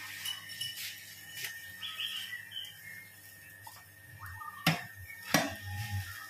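Electric-motor-driven feed mixer running with a steady low hum and a thin high whine while it discharges mixed feed. Near the end, two sharp knocks less than a second apart stand out as the loudest sounds.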